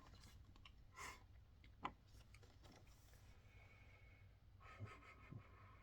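Near silence: room tone with a low hum and a few faint clicks and rustles.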